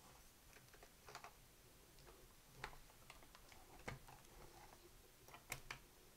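Faint, scattered clicks and light taps of plastic and metal as the top half of a Sony TC-120 cassette recorder's case is handled and fitted down onto its chassis.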